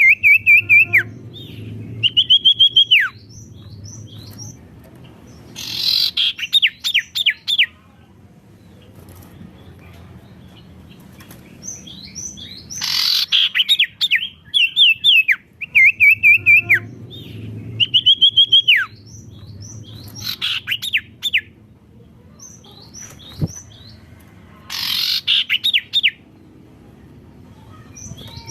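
Sirtu bird singing loudly in repeated phrases: short held whistles that drop off sharply at the end, alternating with quick series of falling chirps, each phrase a second or two long with pauses between. A faint low hum runs underneath.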